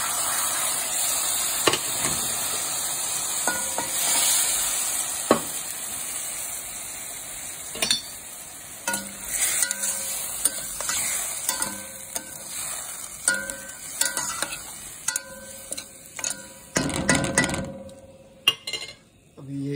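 Water poured into a hot metal pan of fried spices and tomato sizzles loudly for the first few seconds. Then a metal spoon stirs and scrapes against the pan with repeated short clinks.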